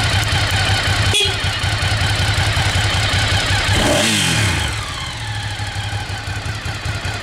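Ducati GT1000's air-cooled 992 cc L-twin idling steadily through its stock exhaust, then switched off about four seconds in, the revs falling away as the engine stops.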